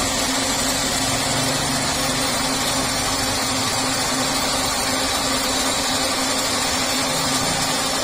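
Old horizontal milling machine running steadily: a constant motor and spindle hum with an even whir, unchanging throughout.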